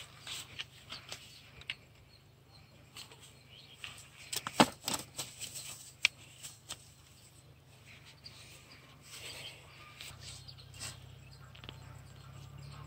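Scattered rustles, clicks and knocks of fishing gear and a backpack being handled on grass, the loudest a sharp cluster of knocks about four and a half seconds in, over a low steady hum.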